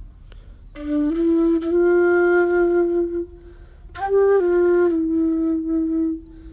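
Flute played solo in two phrases of long held notes, with a short pause between them.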